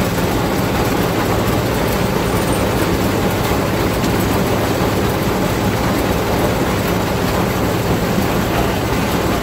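Tractor engine and Krone KR 125 round baler running steadily at a constant speed while the twine arm wraps the bale.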